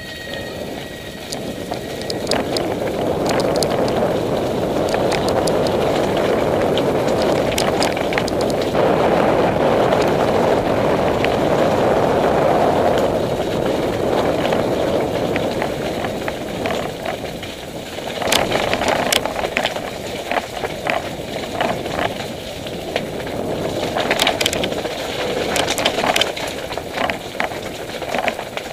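Mountain bike ridden fast down a rough, stony and muddy lane: a steady loud rumble of tyres on the loose surface with the bike rattling. In the second half, many sharp clatters and knocks from the bike jolting over the rough ground.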